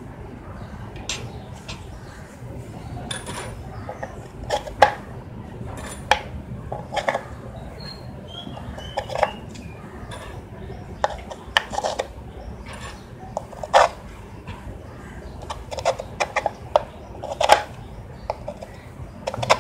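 Irregular clicks and knocks, roughly one a second, from hands handling a wooden base, wood strips and metal screws and bolts on a tabletop, with a light clink among them.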